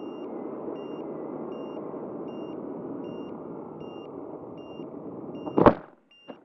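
Steady rush of air on an action-camera microphone in flight. Over it, a short electronic beep at a steady pitch repeats about every 0.8 s. Near the end comes one loud knock, and then the rush stops abruptly and a couple of smaller clicks follow.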